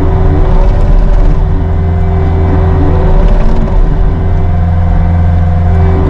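Cat 259D3 compact track loader's diesel engine running steadily under load, a deep continuous drone with a steady whine above it.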